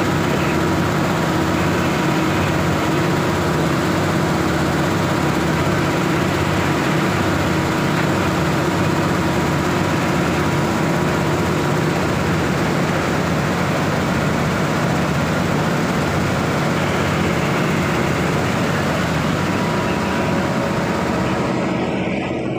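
Coal washing plant machinery running steadily: the vibrating screens, drive motors and conveyors make a loud, continuous mechanical hum and rumble with a few steady drone tones. It thins out slightly near the end.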